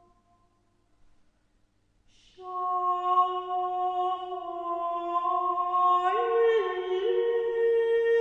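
Background music: a previous passage fades out into a brief near silence, then about two seconds in a slow, wordless passage of long held notes, voice-like in tone, begins and moves to new notes about six seconds in.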